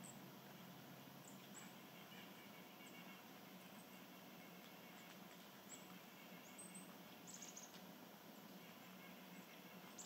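Faint, short, very high-pitched songbird chirps scattered over quiet outdoor hiss, with a quick cluster of notes about seven seconds in.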